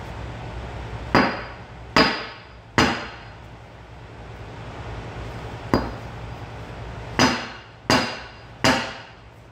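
Nissan GT-R front drive axle knocked down hard onto a concrete floor, seven sharp metallic knocks with a short ring: three in quick succession, then after a pause one lighter knock and three more. The blows drive the outer CV joint back onto the axle shaft until it locks past the snap ring.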